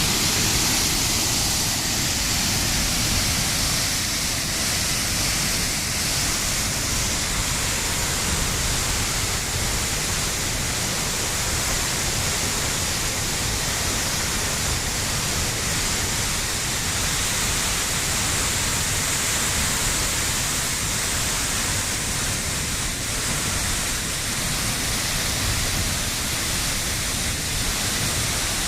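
Waterfall pouring, a steady rushing roar of falling water.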